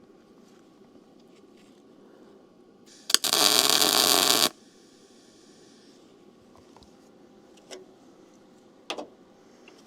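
Welding arc struck for a single tack weld on a steel truck frame, crackling and hissing for about a second and a half, from about three seconds in. Two light clicks follow near the end.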